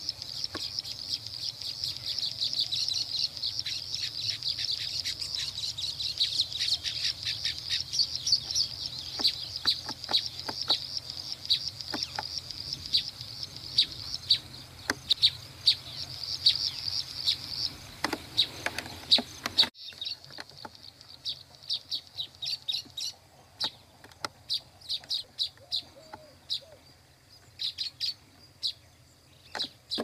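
Baya weavers chattering: a dense run of high, rapid chirps that, after a sudden break about two-thirds of the way through, thins to scattered chirps.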